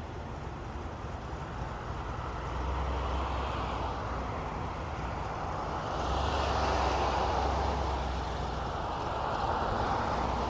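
Vehicles driving past on the road: a steady traffic roar with a low engine rumble that swells twice, about two and a half seconds in and again about six seconds in.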